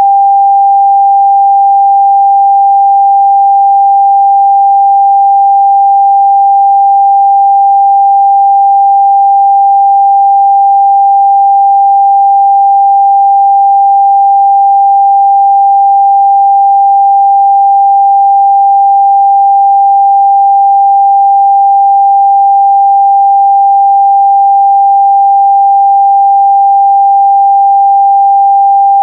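Pure 794 Hz sine-wave test tone, held steady and loud at one unchanging pitch with no overtones.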